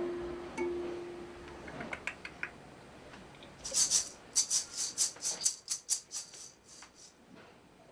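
A hand-held shaker rattled in quick strokes, about four a second, starting about halfway in and stopping near the end. Before it a held low tone dies away, with a few light clicks.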